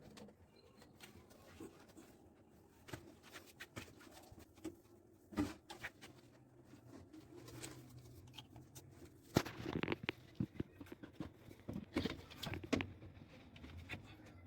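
Scattered light knocks, taps and clicks of hand work on drainage pipes and fittings. A few louder knocks come about five seconds in and in clusters near ten and thirteen seconds in.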